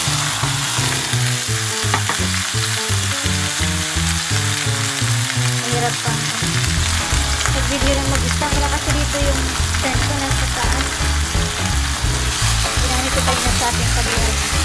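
Raw chicken pieces sizzling in hot oil in a stainless steel pot as they are sautéed, stirred with a wooden spatula near the end.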